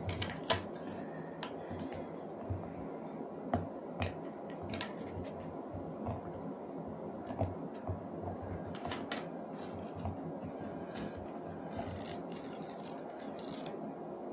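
Paper backing being peeled and handled off an adhesive sheet: scattered small crinkles, scratches and taps over a steady low background noise.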